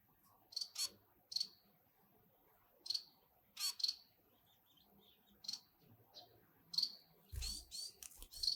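Nestling birds cheeping: short, high chirps in irregular clusters, about a dozen, some sliding downward in pitch. A brief low bump comes near the end.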